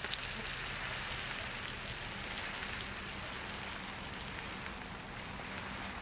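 Bird seed pouring steadily from a bag into a recycled plastic Parmesan cheese container, a continuous dry hiss of seed running onto the plastic that eases a little as the container fills.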